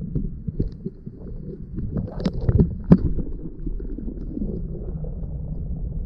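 Muffled knocks and bumps of handling aboard a plastic fishing kayak, with a few sharper clicks between two and three seconds in.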